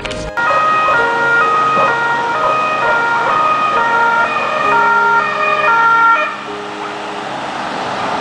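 Ambulance two-tone siren, alternating between a high and a low pitch about twice a second as the ambulance approaches. The siren cuts off about six seconds in, leaving the rushing noise of the passing vehicle.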